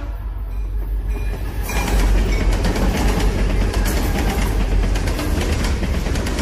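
A deep, steady rumble; about two seconds in a loud, dense clatter of rapid clicks joins it and carries on.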